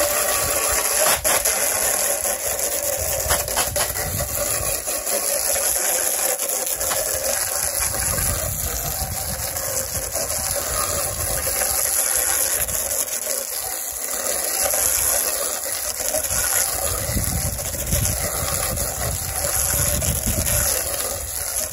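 Water spraying steadily from a hose onto a greasy metal engine plate, rinsing off the degreaser, turned on and off abruptly.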